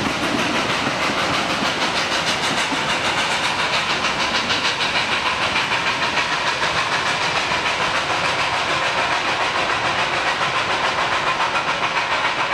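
Narrow-gauge 2-6-2T steam locomotive 12A working up a 1 in 30 grade, its exhaust beating in a quick, even rhythm with steam hiss, along with the clatter of the carriages' wheels on the rails.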